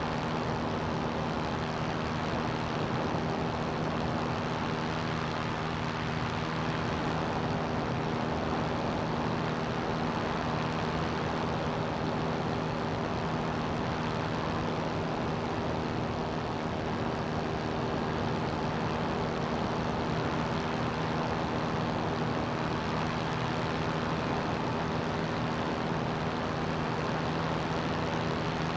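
CGS Hawk ultralight's engine and propeller running steadily in flight: a constant, even drone with a broad rush of air noise, no change in pitch.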